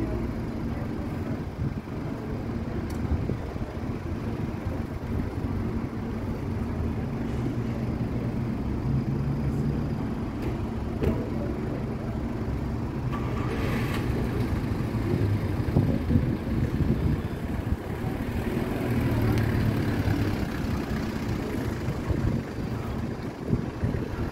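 Road traffic: a steady low rumble of cars running past, with a short hiss about halfway through.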